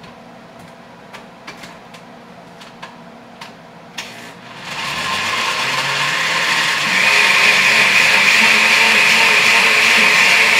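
A few light clicks and knocks as a countertop blender jar is set in place. Then, about four and a half seconds in, the blender motor starts and rises to a loud, steady high whine as it purées a red pepper sauce.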